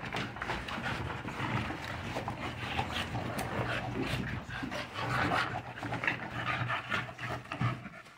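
American bully dogs play-wrestling with chew toys: a steady jumble of dog sounds with scuffling and gnawing.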